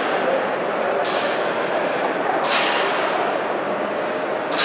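Three sharp cracks, each trailing off with an echo, about a second in, past the middle and at the end, over a steady background din.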